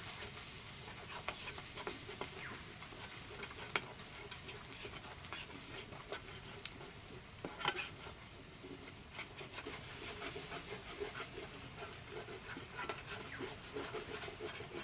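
Oyster mushrooms and potatoes being stirred in a frying pan: a utensil scrapes and clicks against the pan again and again over a faint sizzle.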